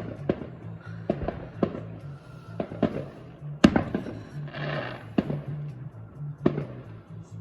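Fireworks going off: about a dozen sharp bangs at uneven intervals, the loudest about three and a half seconds in, with a short hiss just before the five-second mark. Music with a steady bass plays underneath.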